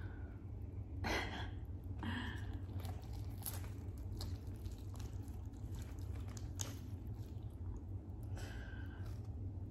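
Whole roast chicken being pulled apart by hand close to the microphone: wet tearing of skin and meat in a few short bursts, with small clicks in between, over a steady low hum.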